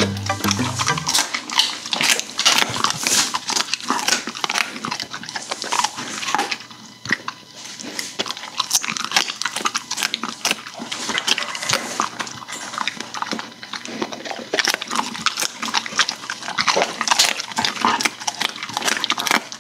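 German shepherd dog snuffling and chewing, with dense, irregular crunching and crackling that eases off for a moment about seven seconds in.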